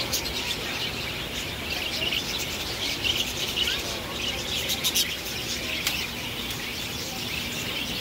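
A flock of budgerigars chattering and warbling in a dense, continuous twitter, with scattered sharp clicks.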